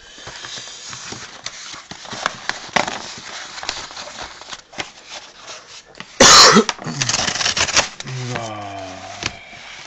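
Cardboard Amazon book-wrap mailer being handled and torn open along its perforated strip: rustling, scraping and small clicks, with a second of tearing about seven seconds in. A short, loud vocal burst comes about six seconds in, and a low hummed voice near the end.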